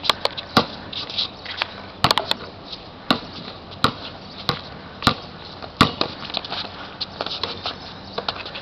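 A basketball bouncing on a hard outdoor court: a string of sharp, irregular thuds, roughly one every half second to second, as the ball is dribbled during play.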